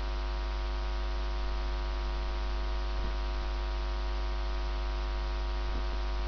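Steady electrical mains hum with a layer of hiss, unchanging throughout.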